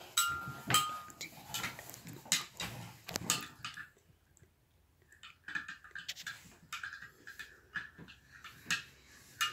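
Metal teaspoon clinking and scraping against a ceramic mug as hot chocolate is stirred. The knocks are short and irregular, with two brief ringing clinks near the start and a quiet gap in the middle.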